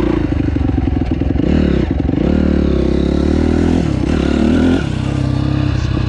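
Honda motocross bike's engine running under throttle while riding on dirt, its pitch dipping and climbing with throttle and gear changes; it revs up about four seconds in and drops off sharply just before five seconds.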